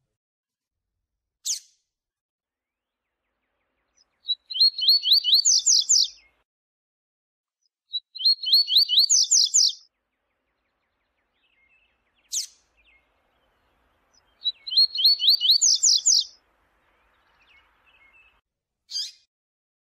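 Double-collared seedeater (coleiro) singing the 'viu-tiu' song: three phrases of rapid repeated notes, each about two seconds long and climbing higher at its end, with single sharp call notes in the gaps between them.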